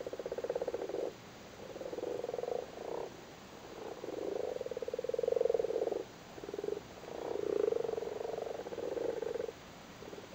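Male common frogs croaking in a spawning chorus, a sign of frogs actively breeding: low, rapidly pulsed croaks, several overlapping, in bouts of one to two seconds with short breaks between them.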